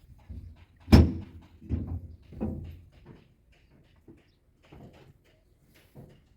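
A single loud slam, like a door being shut, about a second in, followed by a few softer knocks and thuds.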